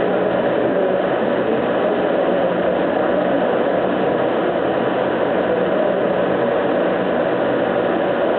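Laser cutter running during a cut: a steady, unbroken hum and rush of air with no pauses.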